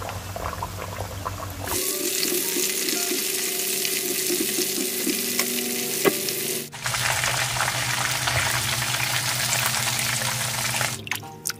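Breadcrumb-coated chicken breast skewers deep-frying in hot oil in a pan, a loud steady sizzle. It swells about two seconds in, breaks off briefly about seven seconds in, then carries on until it drops away near the end.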